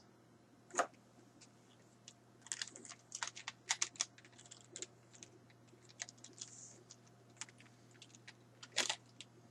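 Faint, irregular plastic clicks and taps from action figures being handled, with a quick cluster of clicks a few seconds in and a sharper knock near the end.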